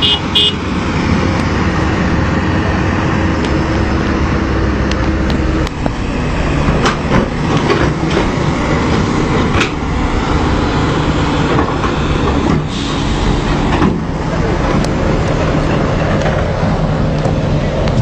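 Diesel engines of heavy hydraulic excavators running steadily under load, with scattered metallic clanks and knocks from the machines working in mud and water.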